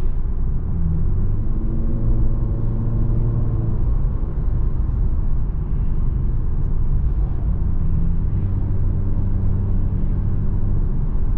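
Turbocharged Infiniti Q50 S heard from inside the cabin while driving: a steady low engine and road rumble, with the engine drone rising out of it twice, once early and again in the second half.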